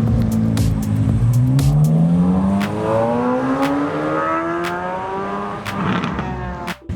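A sports car's engine accelerating away, its pitch rising steadily for about five seconds as it pulls hard. The sound drops out suddenly just before the end.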